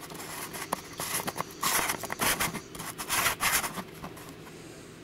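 Handling noise of a threaded infrared filter being screwed onto a camcorder lens, with fingers rubbing and scraping right at the built-in microphone and a few sharp clicks. It dies down about four seconds in.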